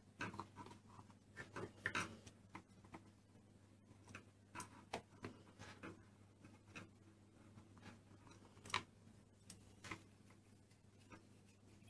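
Faint, irregular clicks and taps of plastic Play-Doh moulds and tools being handled, with the sharpest taps about two seconds in and just before nine seconds.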